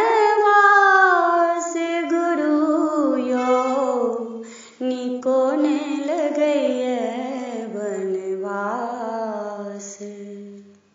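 A woman singing a Maithili parati, a morning devotional song, unaccompanied. The melody steps downward to a long low note that fades out at the very end, closing the song.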